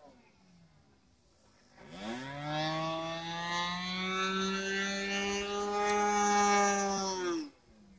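OS .55AX two-stroke glow engine of an RC plane running at high speed through a Pitts-style muffler, spinning a 13x6 prop. It is faint at first, comes in about two seconds in with a rising whine, holds a steady high-pitched note, then falls in pitch and drops away sharply just before the end.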